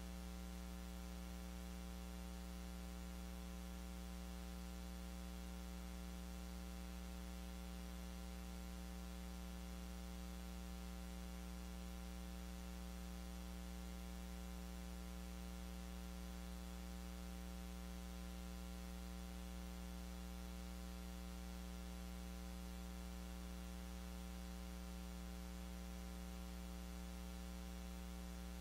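Steady electrical mains hum with a faint hiss, unchanging throughout, with no other sound.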